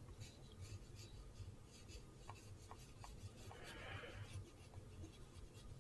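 Faint strokes of a paintbrush across paper, with a soft swish about four seconds in and a few light ticks.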